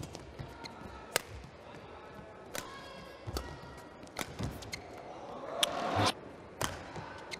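Badminton rally: sharp racket strikes on the shuttlecock, roughly one a second, with shoes squeaking on the court mat between them. The strikes stop about six seconds in as the rally ends.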